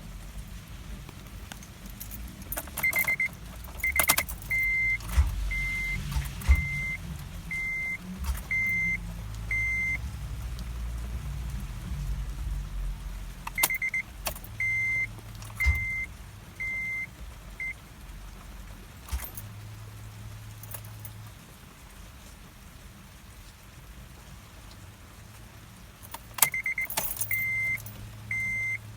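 A 2005 Acura TL's warning chime beeping about once a second in three runs, with keys jangling and sharp clicks where each run begins.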